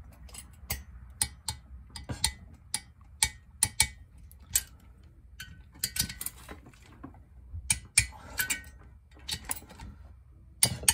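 Ratcheting torque wrench clicking in short irregular runs as the cylinder nuts are tightened down on the studs, with single sharp clicks between them.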